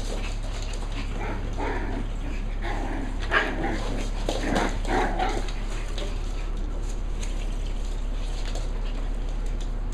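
Seven-week-old Cavalier King Charles Spaniel puppy yipping and barking in several short calls in the first half, the sharpest a few seconds in, over a steady low hum.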